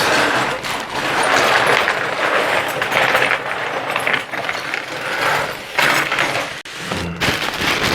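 A large cardboard shipping box being opened: packing tape being cut and ripped and cardboard scraping. It makes a continuous crackling, scraping noise with a few short pauses.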